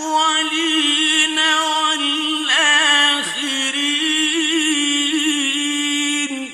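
A male Quran reciter's voice in melodic mujawwad style holds out one long, ornamented note with wavering pitch at the close of a verse. It stops near the end and leaves a short echo.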